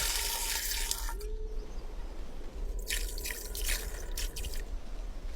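Water splashing and dripping in two spells, the first during about the first second and the second from about three seconds in, over a steady low rumble.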